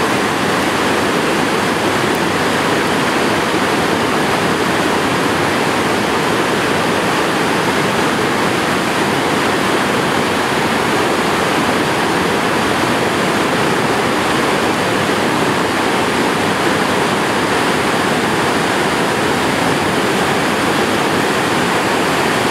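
Whitewater rapid rushing over and between boulders: a steady, loud roar of churning water.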